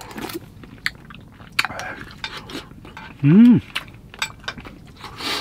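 Spoon and chopsticks clicking and clinking against bowls during a meal, with scattered light clicks throughout. About three and a half seconds in, a person makes one short vocal sound that rises and falls in pitch, the loudest sound here.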